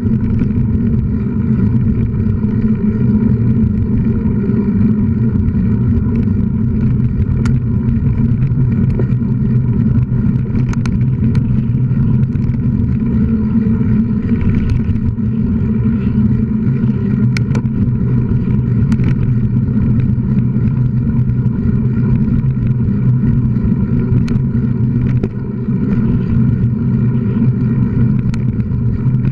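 Steady low drone of riding along a bumpy sandy trail, holding an even pitch throughout, with scattered sharp knocks and rattles from the bumps.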